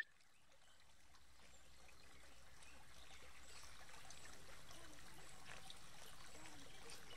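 Small brook running across a gravel road: a steady rush and trickle of water that fades up over the first few seconds and then holds even. A short high click sounds right at the start.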